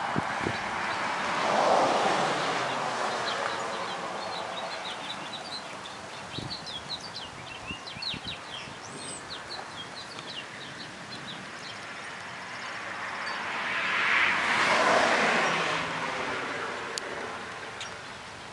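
Two loud swells of rushing noise that build and fade, one about two seconds in and one near the end, with quick high bird chirps in between.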